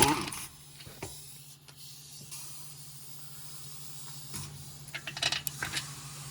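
A sharp metallic clank at the start, then a few faint clicks and a short run of light knocks about five seconds in, as brake parts and tools are handled during a front wheel bearing job, over a steady low hum.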